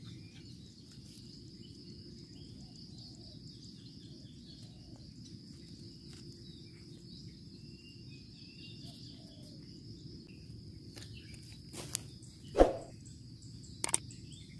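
Outdoor ambience of insects droning steadily, with faint bird chirps. Near the end a few sharp knocks or thumps, the loudest about two seconds before the end.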